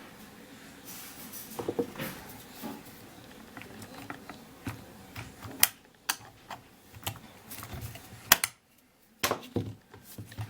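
Irregular small clicks and knocks of hard plastic and metal parts as a Mercedes door lock actuator is handled and worked on by hand, with a few sharper clicks in the second half.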